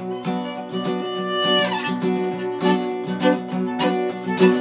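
A fiddle and an acoustic guitar playing an instrumental passage together: the guitar strummed in a steady rhythm, about two to three strums a second, under held fiddle notes, with one downward fiddle slide about one and a half seconds in.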